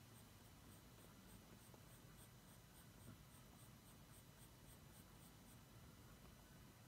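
Coloured pencil scratching lightly on paper in quick, repeated shading strokes, faint; the strokes stop about five and a half seconds in.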